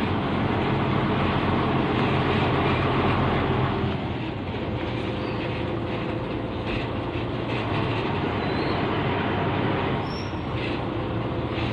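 Truck engine running steadily with road rumble, heard from inside the cab while rolling slowly; it gets a little quieter about four seconds in.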